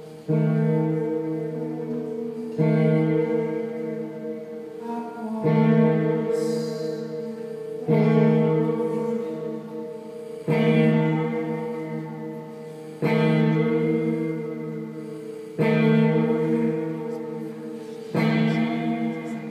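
Electric guitar playing slow chords, a new chord struck about every two and a half seconds and left to ring and fade.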